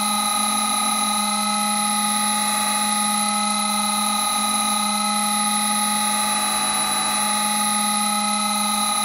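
Synthesized 'creepy glow' sound effect: a steady electronic drone of several held tones, one low and the others high, over a bed of hiss, without change in pitch or loudness.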